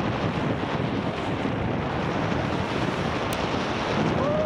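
Wind rushing over the microphones of a Garmin Virb 360 action camera on a moving mountain bike: a steady rush, with one faint click about three seconds in.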